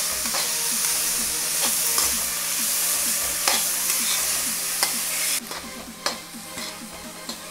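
Capsicum, corn, paneer and onion sizzling in oil in a kadhai while a steel spatula stirs them, with light clicks and scrapes of the spatula on the pan. The sizzle drops suddenly about five seconds in.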